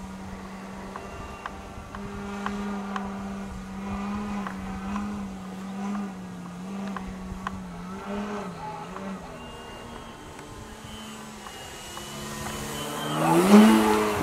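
Electric motor and propeller of a radio-controlled model biplane in flight: a steady whine that wavers up and down in pitch. Near the end it rises sharply in pitch and gets louder.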